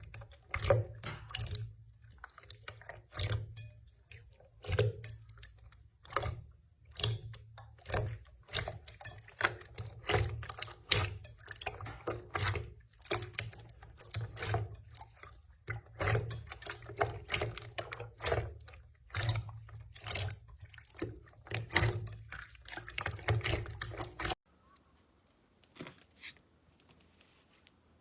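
Slime being squeezed, stretched and pressed by hand, making irregular wet clicks, pops and squelches. About 24 seconds in it cuts to a much quieter clip with only a few faint clicks.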